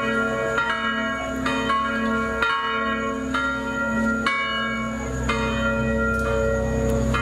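Church bells ringing, a new stroke about once a second, each one ringing on under the next.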